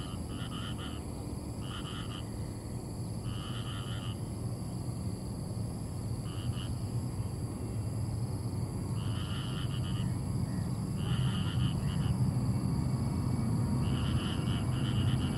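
Frogs calling in short, rapidly pulsed bursts, repeated about every one to three seconds. Beneath them runs a steady low rumble of a Boeing 737-800's CFM56 jet engines, which grows louder over the last few seconds as the airliner spools up for its take-off roll.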